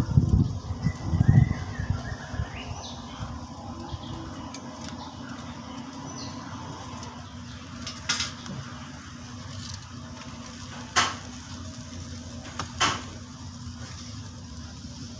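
A round woven hand fan waved over a charcoal fire, its gusts buffeting the microphone for the first two seconds. After that a low steady background with three sharp clicks, spaced a second or two apart.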